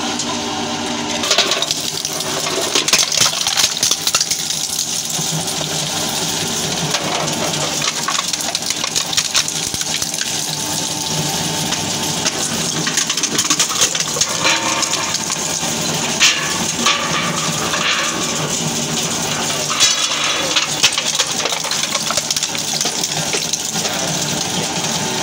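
Twin-shaft mini shredder running for about a second, then its interlocking toothed rotors shredding metal tins in a dense metallic clatter, with sharp cracks as the cans are torn apart.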